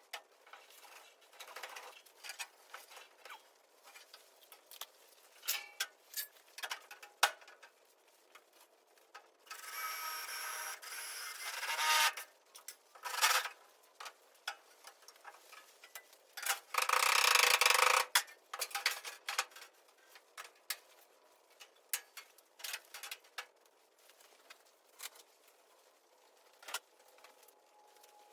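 Hand work on metal parts: scattered clicks and knocks of tools and parts being handled, with a stretch of scraping about ten seconds in and a louder one around seventeen seconds.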